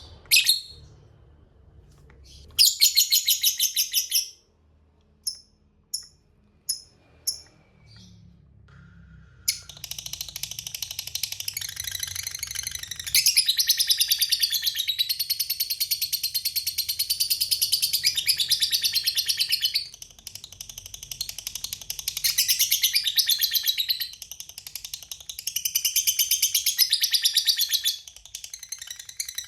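Lovebird calling: a few short high chirps and a brief trill, then about ten seconds in a long, fast, high-pitched chattering trill (the 'ngekek panjang') that runs on with only short breaks.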